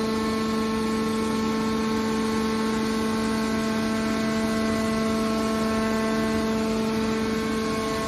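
Hydraulic power unit of a scrap metal baler running with a steady pitched hum while its cylinder swings the baler's top lid down.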